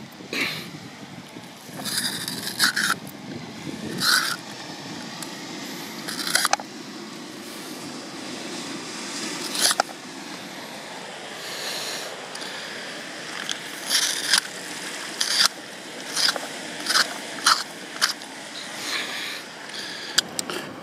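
A knife cutting open a dead seal's tough hide, in short, irregular sawing and slicing strokes.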